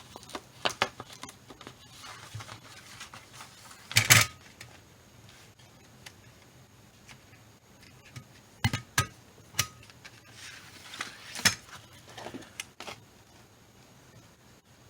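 Long-arm stapler being handled and pressed: scattered sharp plastic-and-metal clicks and clacks, the loudest a double clack about four seconds in, with another cluster of clacks near the end.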